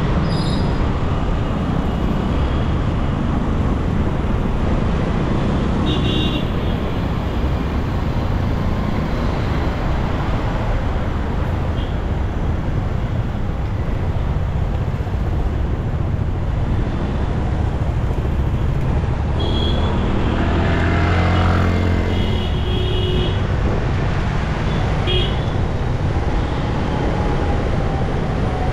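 Busy city road traffic: a steady rumble of engines and tyres, with several short horn toots from surrounding vehicles. About two-thirds of the way through, a louder pitched engine sound from a vehicle passing close.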